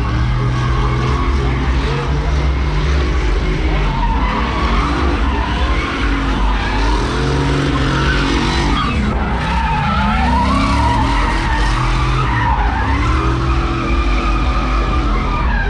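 Nissan Silvia S15 drift car sliding sideways, its engine revving in repeated rising and falling sweeps over the rush and squeal of spinning tyres.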